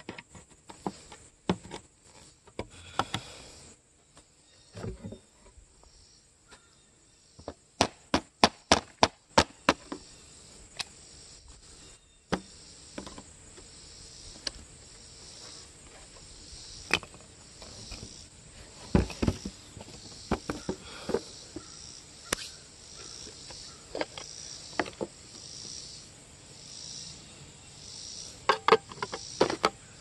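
Sharp clicks and knocks from hand tools worked on a wooden beehive inner cover, including a quick run of about seven clicks around eight seconds in, a heavier thump later, and another cluster near the end. Behind them insects chirp in a faint, pulsing rhythm about once a second.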